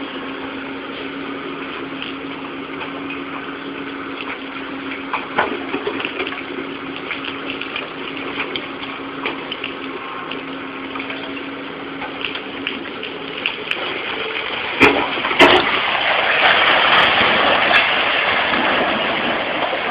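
Demolition of a brick building by an excavator, heard through a small, distorted microphone. A steady rushing noise carries a low hum until about two-thirds of the way in. A couple of sharp knocks follow, then a louder rush of falling masonry and rubble near the end as the walls come down.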